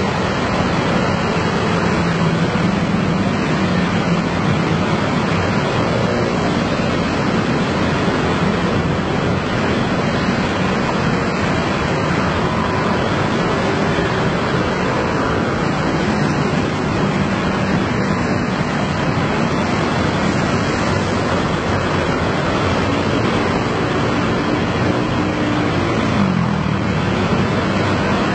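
Massed motor scooters riding past, many small engines running together in a steady, even wash of engine and road noise. Near the end, one engine's pitch drops briefly.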